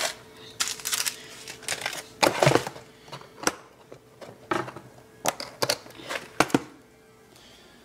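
Crinkling and rustling of handled packaging: a string of short, uneven crinkles and sharp clicks, about a dozen in all, thinning out near the end.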